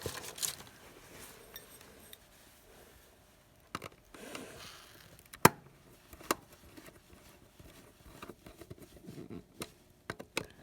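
Handling noise of hands working stripped wire ends into a small remote receiver's screw terminals: scattered small clicks, taps and rustles, with one sharper click about five and a half seconds in.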